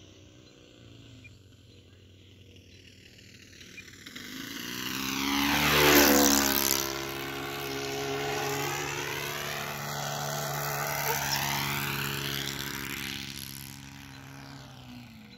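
Four-stroke model engine of a radio-controlled floatplane flying past, growing louder to a close pass about six seconds in, running steadily as the plane circles, then fading near the end.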